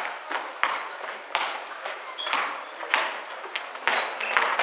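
A basketball dribbled on a hardwood gym floor, each bounce a sharp thud echoing in the hall, coming about every two-thirds of a second. Short high squeaks of sneakers on the floor sound between the bounces.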